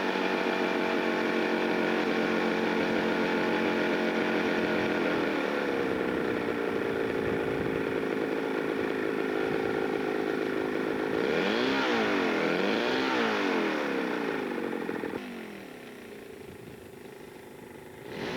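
Super Tiger 6000 twin-cylinder 60 cc glow engine of a quarter-scale RC Hawker Hurricane running on the ground at a steady high speed, dropping to a lower speed about five seconds in. Around eleven seconds its pitch swings down and up a few times as it is throttled, and about fifteen seconds in it becomes much quieter.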